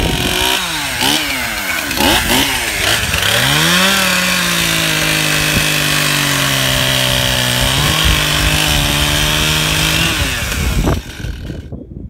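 Two-stroke gas chainsaw bucking a log. It is revved up and down a few times, then held at full throttle through the cut, its note sagging lower as the chain bites and rising again about two thirds of the way in. It is let off shortly before the end.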